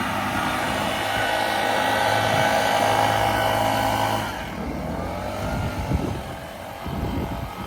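A 21-inch Honda lawn mower running steadily. About four seconds in, its sound drops away, leaving irregular knocks and rumble.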